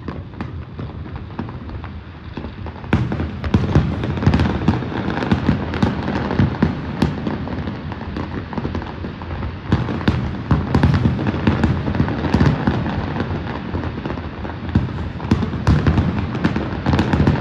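Fireworks display: a continuous barrage of bangs and rapid crackling from many shells bursting at once. It grows denser and louder about three seconds in, with heavier volleys around ten seconds and again near the end.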